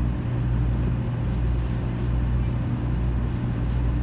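Steady low hum and rumble of the cabin inside a 500 series Shinkansen passenger car.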